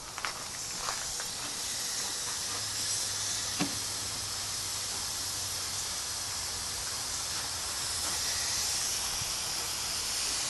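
Pressurized nitrous oxide hissing steadily from a leak in a freshly installed nitrous system near the solenoid. The owner suspects a bad solenoid or a fitting not screwed in all the way.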